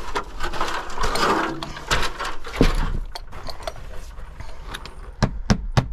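Hammer blows driving a nail through the nailing slot of a vinyl siding panel: a quick, even run of strikes, about three a second, starting about five seconds in. Before that, rustling and scraping with a few clicks as the panel and nail are handled.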